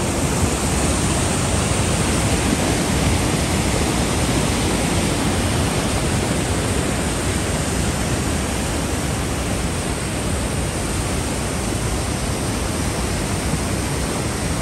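The Sooke River rushing over boulders through a narrow rock gorge: a steady, loud rush of rapids and whitewater.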